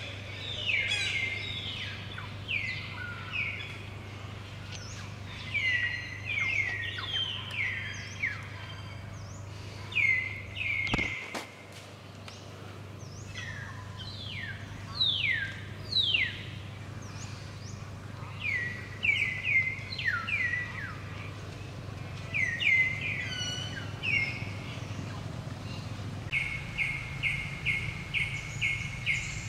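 Birds calling and singing: many short whistled notes that sweep downward, ending in a quick run of even notes at about three a second. A steady low hum runs underneath, and there is a single sharp click a little over a third of the way in.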